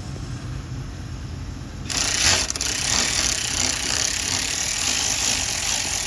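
A powered ratchet, driving a 10 mm swivel socket on a long extension, runs steadily to back out the crank position sensor bolt. It starts suddenly about two seconds in with a hissing, buzzing rattle.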